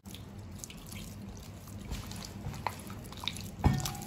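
A hand squishing and kneading pork strips in thick wet starch batter in a glass bowl, with small wet clicks and drips as water is added from a ladle. One louder knock near the end.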